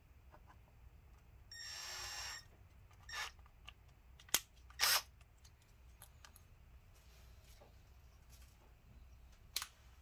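Small hand tools working at the plastic keyboard retaining pieces of a laptop top case: a short scraping rasp about two seconds in, then a few sharp plastic clicks and snaps, the loudest about halfway through.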